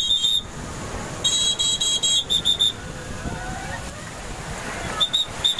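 A shrill whistle blown in sharp repeated blasts: a short one, a longer broken blast, then quick bursts of three or four. Underneath runs the steady rush of heavy surf washing up the beach.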